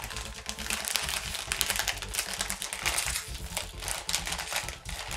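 A crisp packet, a Kettle Chips bag, being pulled open by hand: a dense, irregular run of sharp crinkling and crackling from the plastic film.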